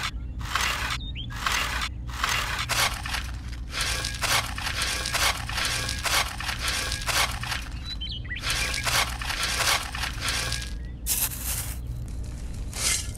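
A small metal trowel scraping and digging into hard, dry soil, breaking it into crumbly clods. The scrapes come roughly once a second.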